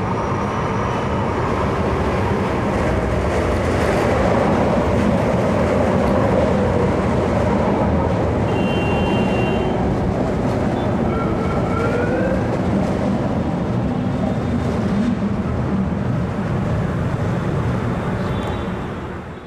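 Manila LRT-1 light rail train (Set 7) running through the station: a steady rumble of wheels and traction, with a few short rising whines near the middle.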